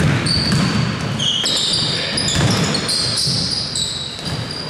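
A basketball is dribbled on an indoor court, its bounces thudding over and over, while players' sneakers squeak on the floor in short, high chirps.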